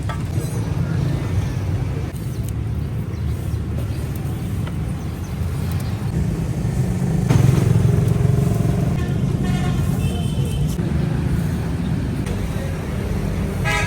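Steady low rumble of street traffic, slightly louder about halfway through, with faint voices in the background.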